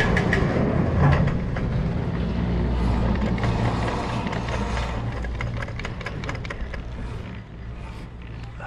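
Chairlift machinery running: a steady low rumble with rapid mechanical clicking and clatter, loudest at the start and fading away over the following seconds.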